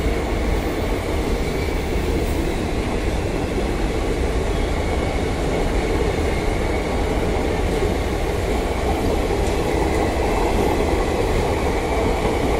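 Indian Railways passenger coaches rolling past at speed, a steady, loud noise of wheels running on the rails.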